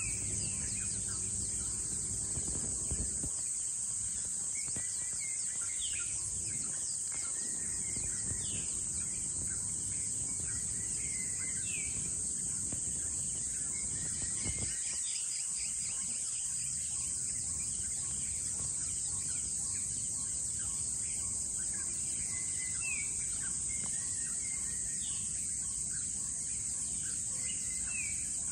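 Dawn ambience: a steady high-pitched drone of insects, with short bird chirps scattered throughout. A low rumble in the first few seconds stops about three seconds in.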